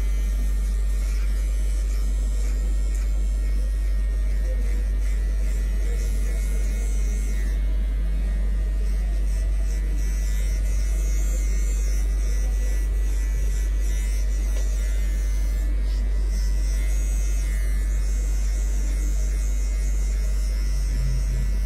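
Cordless hair clipper fitted with a 1.5 guard running steadily as it cuts short hair up the side of the head, with a loud, steady low hum beneath it.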